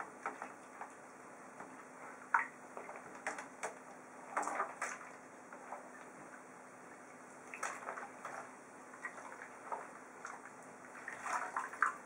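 Hands sloshing and splashing water in a plastic tub of soapy water while washing a pigeon: irregular short splashes, busiest about four seconds in and near the end.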